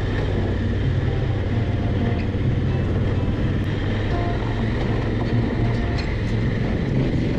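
Honda Africa Twin CRF1000L's parallel-twin engine running at a steady pace while the bike rides a gravel track, with wind and tyre noise over it.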